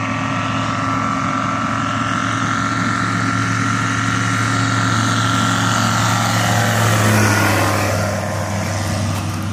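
Zenith STOL "SkyJeep" light-sport kit plane's engine and propeller at takeoff power during the takeoff run and climb-out. The steady drone grows louder as the plane comes on, is loudest about seven seconds in as it passes low overhead, then drops in pitch and fades as it climbs away.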